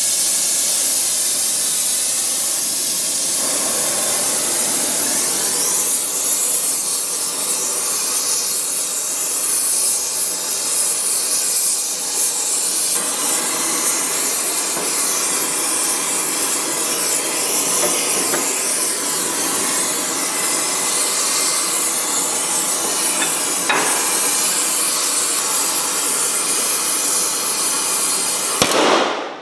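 Oxy-fuel heating torch flame burning with a steady hiss, played on a rusted, seized track-adjuster jam nut to heat it loose. It stops abruptly near the end.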